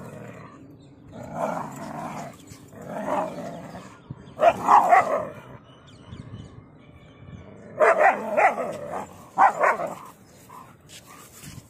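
A dog barking in about five short, loud bouts, the loudest near the middle, as it faces off with another dog in a confrontation.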